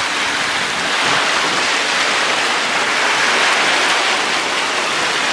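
Lake waves washing steadily against the shore: a continuous rushing water noise.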